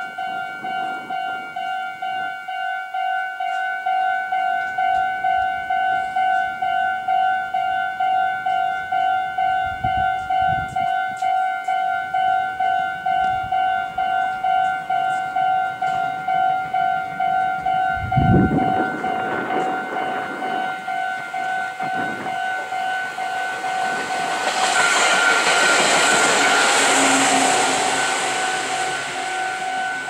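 Japanese level-crossing warning bell on the Meitetsu Inuyama Line ringing steadily, about two strokes a second. About 24 seconds in, a passing train's rushing noise swells to the loudest part and fades near the end. A short low rumble comes about 18 seconds in.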